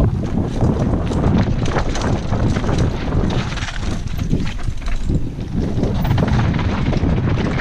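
Wind rushing over a helmet-mounted camera's microphone at speed, mixed with the constant clatter of a downhill mountain bike rattling over a rough dirt trail.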